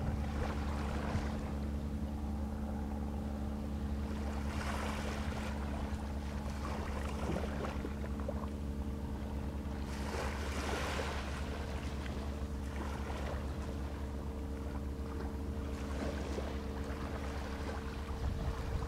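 Motorboat engine running steadily at low speed, a constant low hum. Rushes of wind noise come through about five and ten seconds in.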